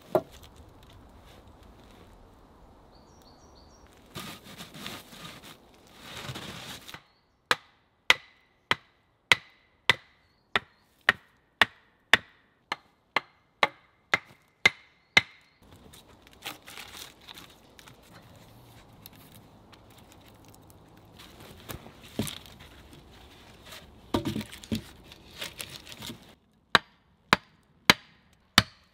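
Wooden mallet driving wooden stakes into the ground: runs of sharp, evenly spaced knocks about two a second, with rustling and handling noise between the runs.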